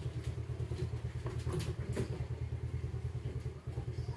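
A steady low mechanical drone with a fast flutter, with a few light clicks and knocks from handling the cabinet panels.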